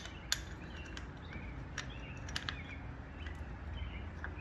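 Short high chirps from a small bird, repeating every half second or so over a low steady hum. A few light metal clicks come from drum-brake shoes and springs being worked back into place on the hub.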